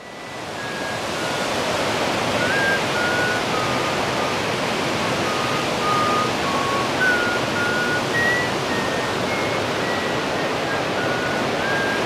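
Gocta Falls, a very tall waterfall, giving a steady rush of falling water that fades in over the first second or two. Short, thin whistled notes at varying pitches come and go over it.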